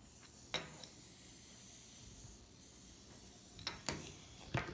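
Sharp clicks and knocks of a 3D-printed plastic whistle toy being handled and set down on a table: one click about half a second in, then a few knocks near the end. A faint hiss lies underneath, and no whistle sounds.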